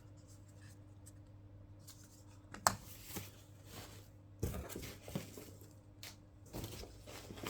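Unpacking and handling noises: a sharp click about two and a half seconds in, then irregular rustling, tearing and rubbing of wrapping, with a few small knocks.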